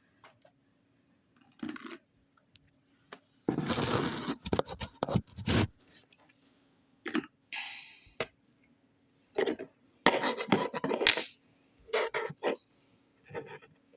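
Slime being handled and scraped out of its container: irregular scraping and crackling bursts with sharp clicks, loudest in two spells about four and about ten seconds in.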